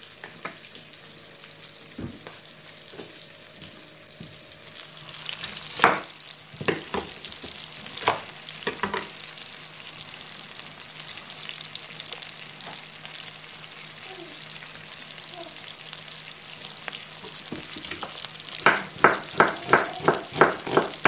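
Sliced onions sizzling steadily as they fry in a pan, with a few scattered knocks of utensils. Near the end a kitchen knife starts chopping red onion on a wooden cutting board, sharp knocks about three a second.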